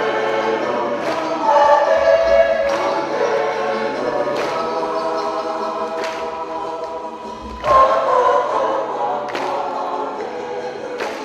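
Choir singing in sustained chords, with a soft beat about every second and a half to two seconds and a swell just before the last few seconds.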